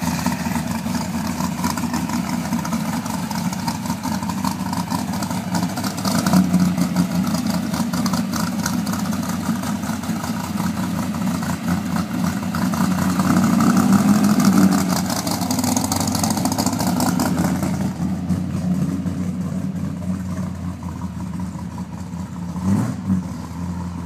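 A 1964 Chevy II Nova's engine running as the car pulls out and drives away, swelling as it accelerates about six seconds in and again around the middle, then fading as it moves off down the street.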